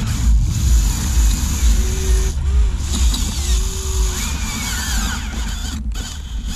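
Huina 1580 RC excavator's small electric motors and gearing whining as the bucket pries at a large boulder, the pitch gliding up and down as the load changes, over a steady low rumble. The motors dip out briefly twice.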